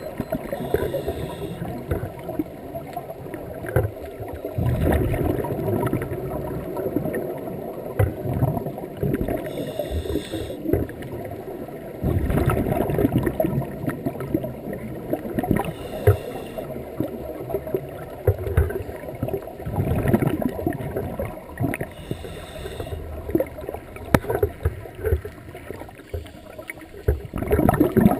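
Scuba diver breathing through a regulator underwater: a short hiss on each inhale, then a long gurgling rush of exhaled bubbles, several breaths in turn.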